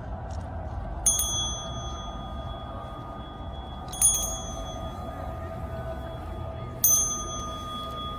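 A tak, the small Korean signal handbell, struck three times about three seconds apart, each stroke ringing on with a bright metallic tone. It is the bell rung during the gatekeeper's inspection of the gate guards.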